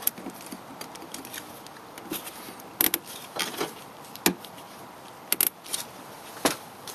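Plastic cable ties being worked around a magnetizer clamped on a radiator hose: a scattering of sharp clicks and small rattles, some in quick pairs.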